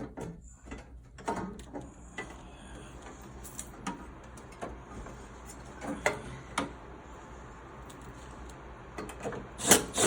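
Scattered clicks and small knocks of a screwdriver and metal panel as a screw is driven back into a PTAC unit's power door cover, with two loud knocks near the end over a low steady hum.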